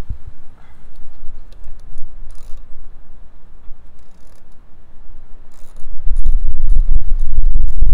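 Ratchet wrench clicking in short runs as a bolt is tightened through a wooden bracket into a post. A loud low rumble comes in about six seconds in.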